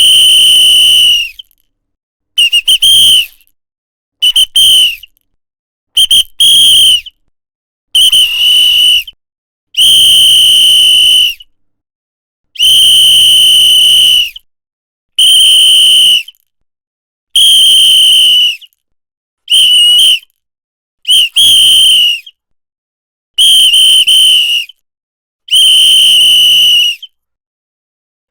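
A whistle blown in a series of about thirteen blasts at one high, steady pitch, with short silences between them. Some blasts are held for one to two seconds, and others are broken into two or three quick toots.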